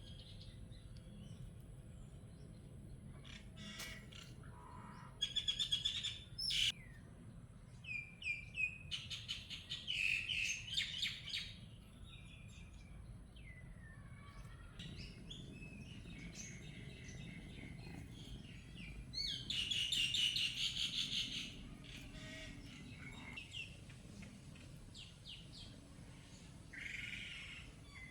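Wild birds chirping and calling, with bursts of fast trilled chirps about five seconds in, around ten seconds in and again around twenty seconds in, over a low steady background rumble.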